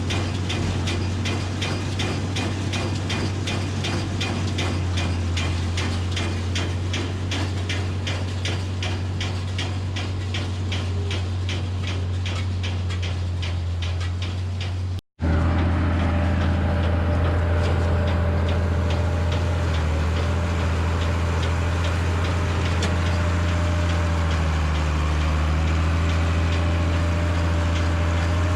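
Massey Ferguson 3505 tractor's diesel engine running under load as it pulls a Claas Rollant 85 round baler. For the first half there is an even ticking of about three a second. After a sudden break about halfway, the engine runs steadily with a wavering whine and no ticking.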